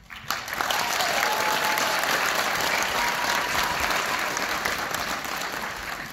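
Audience applauding, breaking out within the first second and dying down near the end.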